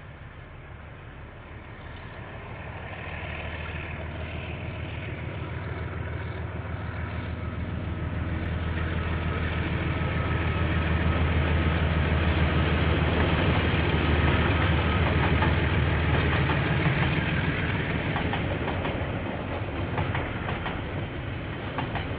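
KiwiRail diesel locomotive approaching and passing: a steady low engine drone grows louder to a peak past the middle, then eases. Near the end, wagon wheels clatter over rail joints in a rhythmic clickety-clack.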